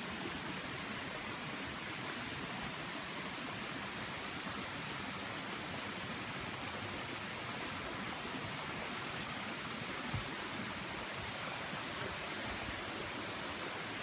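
Rushing river water of a waterfall and rapids, a steady, even rush.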